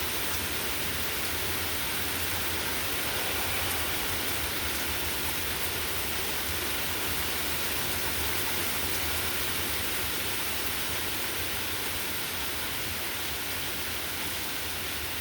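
Rain coming down steadily, a continuous even hiss.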